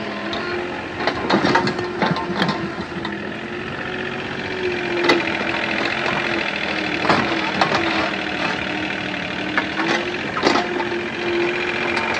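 A motor running steadily with a slightly wavering hum, with irregular knocks and clicks throughout.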